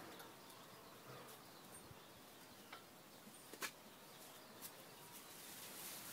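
Near silence with faint handling noises: a rag wiping the bare cylinder and block of a small engine pump, with a few small clicks, the sharpest about three and a half seconds in.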